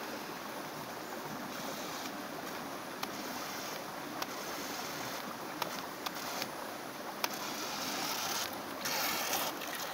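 Steady rush of a small river with little waterfalls, with a few short surges of brighter hiss and scattered sharp clicks.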